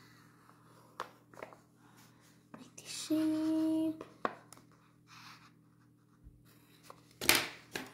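Pencil scratching on paper in short, light strokes as an eye is drawn, with a brief steady hum about three seconds in and a louder short noise near the end.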